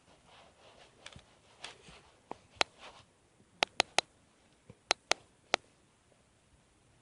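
Stomach making noise: soft gurgles in the first few seconds, then a run of sharp little pops, three in quick succession about four seconds in.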